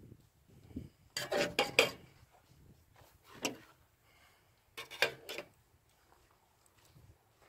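Feathers being pulled by hand from a scalded rooster carcass: three bursts of short crackling rips, the loudest about a second in.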